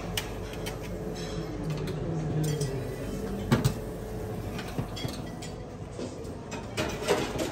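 Breakfast-room clatter: dishes and cutlery clinking over a low murmur of voices, with two sharp clinks close together about three and a half seconds in.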